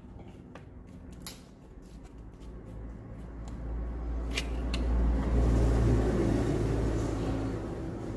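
A few light clicks of plastic and cable being handled, then a low rumble that swells over a few seconds, is loudest about five to six seconds in, and eases off near the end.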